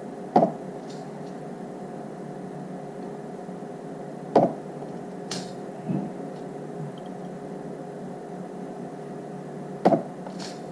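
Auto-pulse battery spot welder firing three welds, each a sharp snap, with about five seconds between them, as nickel fuse strip is welded onto battery cells. Each snap is followed within a second by a short high hiss.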